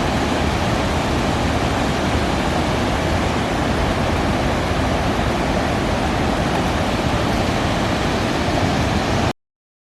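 Steady rushing of water pouring down a man-made waterfall, cutting off suddenly about nine seconds in.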